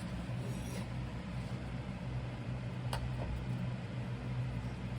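Steady low hum of a metal-melting furnace running, with one faint click about three seconds in.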